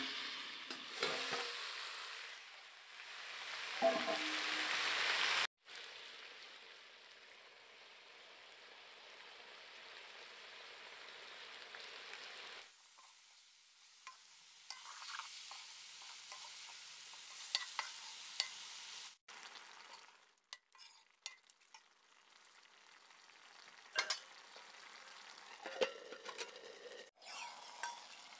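Eel and vegetable curry sizzling in a kadai (wok), with a spatula clicking and scraping against the pan as it is stirred. The sizzle is loudest for the first few seconds, then settles to a softer steady hiss, and sharp clicks from the stirring follow later.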